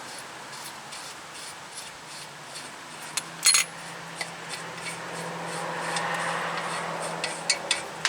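Hand tools clinking and scraping on the ball joint's stud and nut in scattered, irregular small metal clicks, with one sharper clatter about three and a half seconds in. A faint steady hum sits underneath from about two seconds in.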